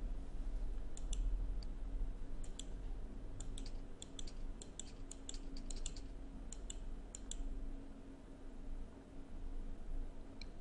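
Irregular light clicks at a computer, a dozen or more between about one and seven seconds in and a couple near the end, over a faint steady low hum.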